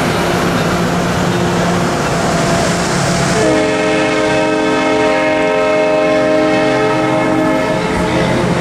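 Passenger train cars rolling past with steady wheel-on-rail noise. About three and a half seconds in, a train horn sounds one long steady chord for about four seconds.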